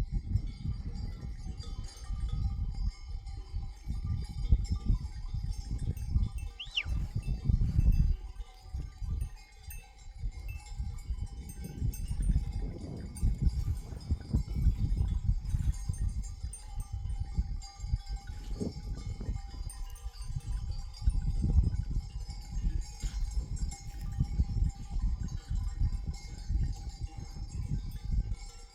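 Sheep bells ringing and clinking steadily as a flock moves, over a constant low rumble. A brief high whistle-like chirp sounds about seven seconds in.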